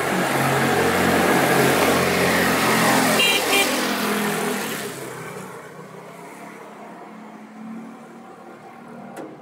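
A motorcycle passes close by with its engine running loud. A horn gives two short toots about three seconds in, then the bike fades away into the distance.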